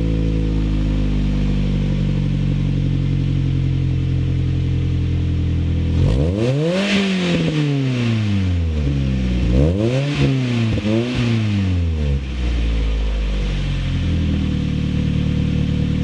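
2013 Mazda MX-5 Miata's 2.0-litre four-cylinder engine through an aftermarket RoadsterSport header and muffler exhaust, idling steadily, then free-revved several times: two longer revs and two quick blips about five seconds in, before settling back to idle.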